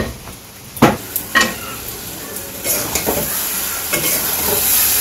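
A metal utensil knocks against a metal cooking pot twice, then food starts to sizzle steadily in a hot pan about halfway through and grows louder.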